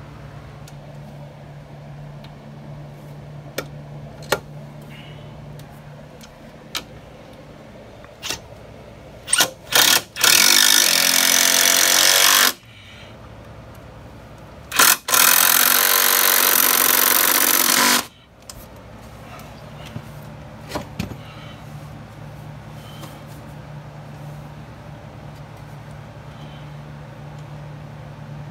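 Cordless drill-driver running in two bursts of about three seconds each, working into the wooden shelf frame. Each burst starts with a couple of short trigger blips, and there are scattered clicks and knocks of handling between them.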